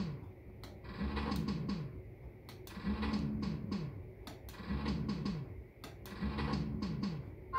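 Maygay Great Escape fruit machine spinning its reels four times in a row: each spin sets off a short electronic jingle of falling notes, followed by sharp clicks as the reels stop.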